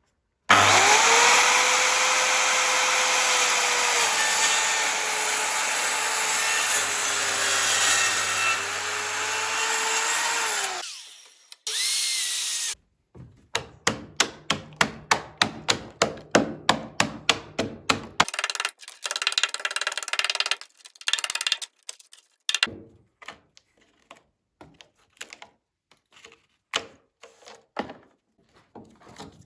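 Power drill boring through thick timber for about ten seconds, its motor pitch sagging and recovering under load, then a brief spin-up. This is followed by a run of sharp knocks, about three a second, which become slower and irregular.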